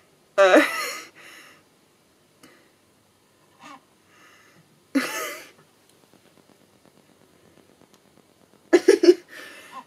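A woman laughing in a few short bursts, several seconds apart, with quiet breathy pauses between them.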